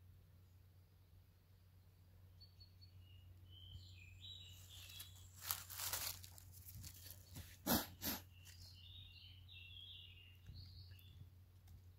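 Dry fallen leaves rustling loudly for a few seconds about halfway through, disturbed close to the microphone by a hand moving through the leaf litter, over small birds chirping in short notes.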